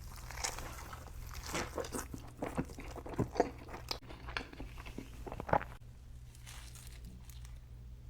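Biting into and chewing a patty melt, close to the microphone: irregular small crunches and wet chewing clicks, quieter after about six seconds.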